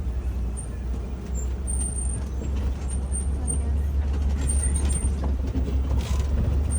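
Safari ride truck driving, a steady low engine and road rumble.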